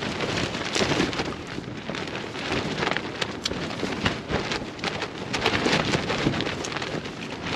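Wind buffeting a tent's fabric and mesh, a continuous rustle, mixed with the irregular crackle of a plastic zip bag of muesli being stirred and eaten from with a spoon.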